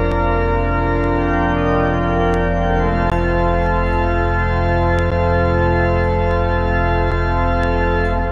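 Church organ playing sustained chords over a deep held bass note, moving to a new chord about three seconds in; the final chord is released near the end and dies away in the church's reverberation.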